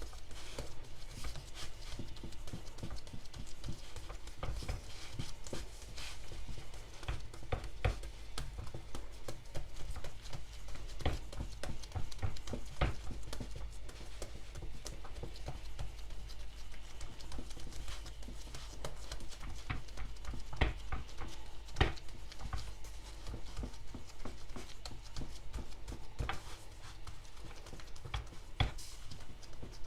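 Irregular light taps and clicks of hands working pizza dough on a perforated metal pizza pan, over a steady low hum.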